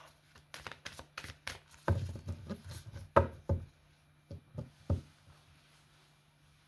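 Tarot cards being handled and laid out: a quick run of light clicks and taps, thinning out and stopping about five seconds in.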